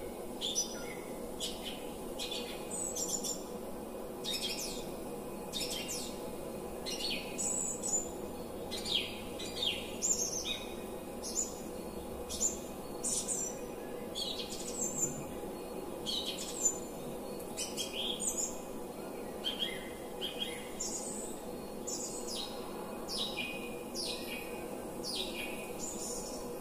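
Many birds chirping and twittering in quick, overlapping calls, over a steady hum.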